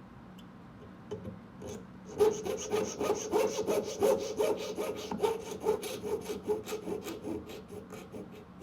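Jeweller's saw cutting through a small metal tube in quick, even back-and-forth strokes, with a steady ring from the blade. The strokes start about two seconds in, and the blade has just been lubricated to stop it pinching in the cut.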